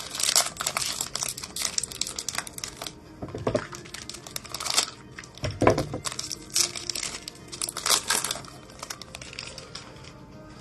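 Foil wrapper of a Panini Mosaic football card pack being torn open and crinkled. The crackling comes in repeated bursts and thins out near the end.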